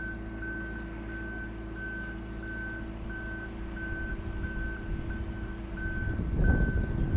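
Boatyard travel lift running, its engine droning steadily while its motion alarm beeps a little under twice a second as the lift hauls a boat out. Near the end a louder low rumble rises over it.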